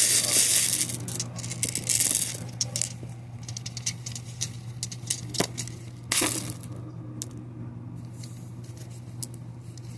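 Homemade squishy being squeezed and handled, crinkling and crackling, loudest in the first two seconds, with scattered clicks and a short crackling burst about six seconds in.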